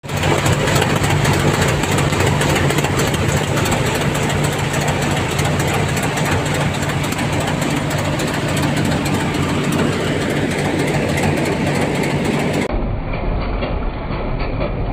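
Groundnut (peanut) thresher running steadily, a loud constant mechanical hum over a broad noise. About 13 s in the sound cuts abruptly to a duller, deeper rumble of the machine as pods pour from its outlet.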